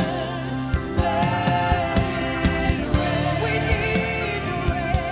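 A woman singing a gospel song with a live band, holding long notes with vibrato over a steady drum beat.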